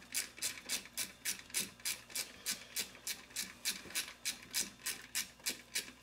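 Ratchet wrench clicking at an even pace, about four clicks a second, as a T25 Torx bolt is run down tight.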